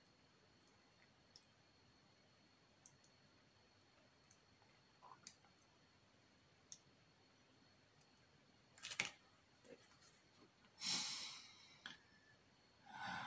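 Faint, scattered clicks of small model-kit parts being handled and pressed together. There is a louder clack about nine seconds in, and a short rustling knock about eleven seconds in, around when a screwdriver comes to lie on the table.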